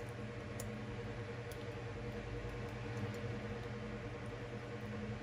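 A steady machine hum under a faint hiss, with a few faint ticks in the first two seconds.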